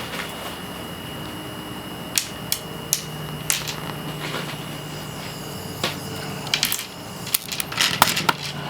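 Small handheld torch hissing steadily while solder is melted onto a 510 connector's lead. Sharp metal clicks and taps of tools on the work sound over it, several in a row near the end.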